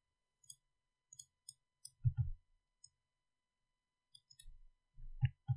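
Faint computer mouse clicks and keyboard key taps: a scatter of light ticks, with a few louder clicks about two seconds in and near the end.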